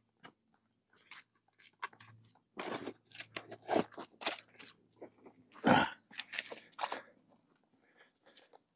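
Steel digging spade cutting and levering through turf and soil: a run of irregular crunches and scrapes over several seconds, the loudest about two-thirds of the way through as a clod is prised out of the hole.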